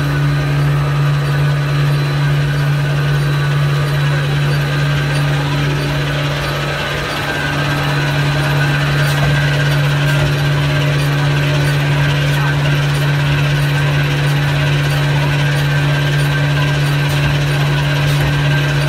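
Facial tissue and kitchen towel paper cutting and converting machine running: a loud, steady mechanical din with a constant low hum.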